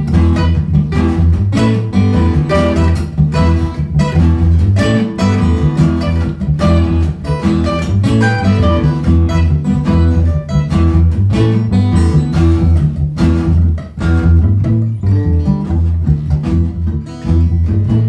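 Background music: plucked acoustic guitar over a steady bass line.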